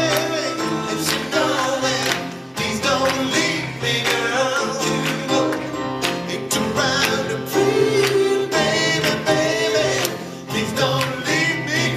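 Live pop music: voices singing over a backing band with drums and guitar.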